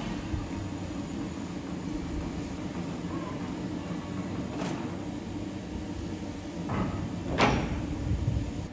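Railway locomotive sounds: a steady low hum with short rushing bursts about four and a half, six and three-quarter and seven and a half seconds in, the last the loudest.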